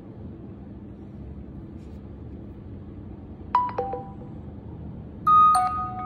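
Two short electronic phone chimes over a low background hum. A quick falling chime of three notes comes about three and a half seconds in, and a louder two-note ding-dong follows about five seconds in, as the Google Duo call is cut off on the Samsung Galaxy phones.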